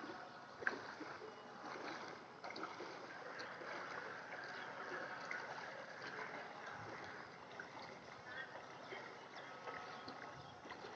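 Floodwater flowing, a steady faint rushing, with a single sharp click about a second in.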